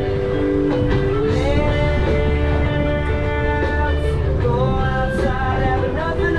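Background music: a song with singing and guitar, with long held notes that slide from one pitch to the next.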